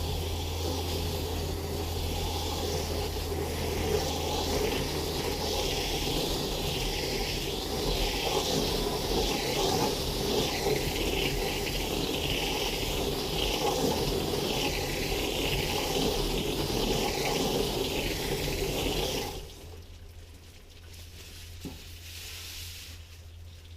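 A spray of water hissing onto a steel cutout, rinsing copper sulfate solution off to stop the patina reaction; the spray wavers as it moves over the metal and stops about 19 seconds in.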